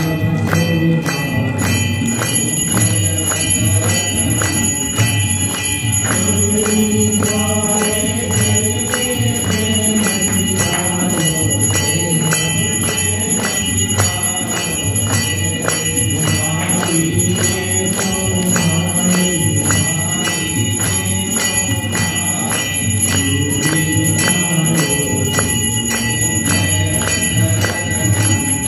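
Hindu aarti: temple bells ringing in a steady, fast, even rhythm of strokes over a devotional aarti melody.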